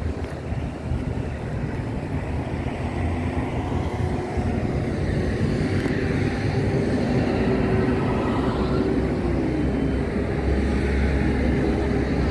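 Wind buffeting the microphone in a steady low rumble, with a steady engine hum joining in from about halfway through.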